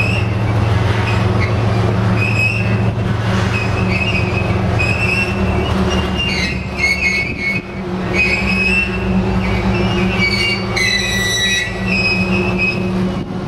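Tank cars of a long oil train rolling past with a steady low rumble, their wheels letting out repeated short high squeals, the loudest near the end.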